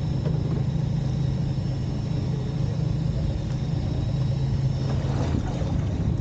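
Small fishing boat's engine idling with a steady low rumble, and a short hissing rush about five seconds in.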